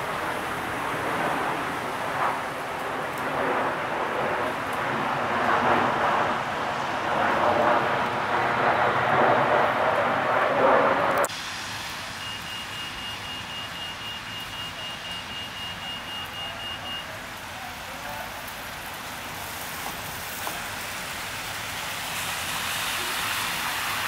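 City street ambience with a dense rush of traffic noise. It cuts off abruptly about eleven seconds in, leaving a quieter wet-street background. In that quieter part, a run of high electronic beeps lasts about five seconds.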